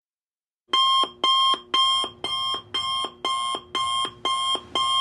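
Alarm-clock-style electronic timer alarm beeping: nine quick identical beeps, about two a second, starting about a second in. It marks the end of the 25-minute work session.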